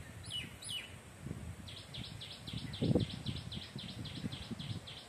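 A bird calling outdoors: two quick downward-sliding whistles, then a fast run of short, repeated high notes, about five a second, over a low rumble of wind on the microphone.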